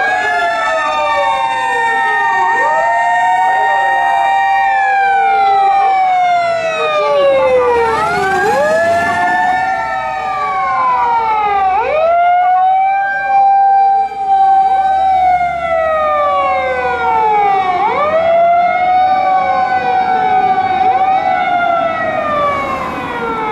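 Sirens of a Japanese fire rescue truck and command vehicle on an emergency run: each tone rises, holds and falls in a cycle of about three seconds, the two sirens overlapping out of step.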